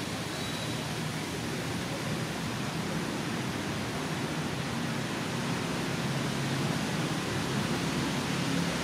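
Steady rushing background noise with a faint low hum underneath.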